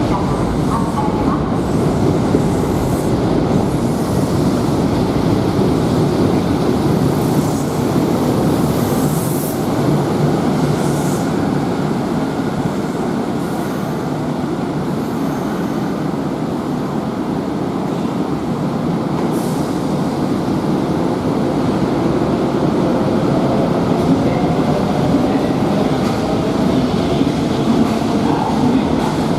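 Kintetsu electric train running on the rails: a steady, loud rumble of wheels and cars, with a few short high wheel squeals. An electric motor whine glides in pitch near the end.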